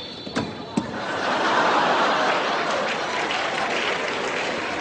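Two sharp clicks, then a theatre audience laughing and applauding.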